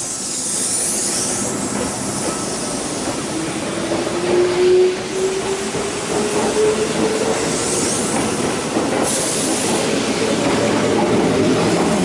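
Kintetsu 12200 series limited express electric train pulling out and running close past, its wheels rumbling on the rails. A whine rises steadily in pitch as it accelerates, with brief high squeals from the wheels near the start and again later.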